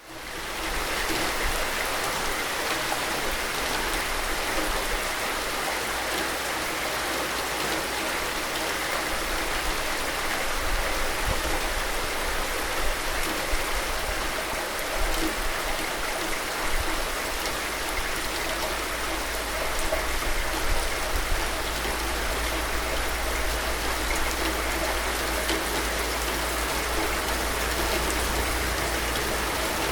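Steady rain falling in an even hiss, with a low rumble underneath; the sound fades back in at the very start.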